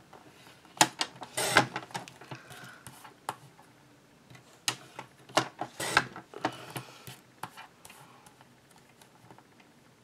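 Paper trimmer cutting cardstock: the blade carriage clicks and scrapes along its rail as the paper is trimmed and repositioned. The sound comes in short bursts, busiest about a second and a half in and again around five to six seconds in, then dies away.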